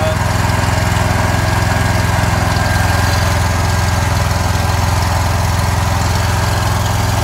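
John Deere Z-Trak zero-turn mower engine running at a steady speed, just started with a little choke. It now starts and runs because the parking brake linkage has been tightened, clearing the parking-brake fault code that kept it from starting.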